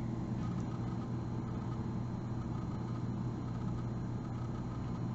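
Steady low hum of room background noise, even throughout, with no distinct handling clicks.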